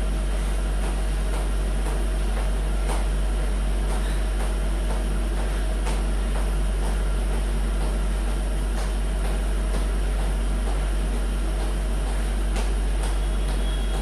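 Steady low hum that does not change, with a few faint scattered knocks, likely feet landing on a tiled floor during jumping exercise.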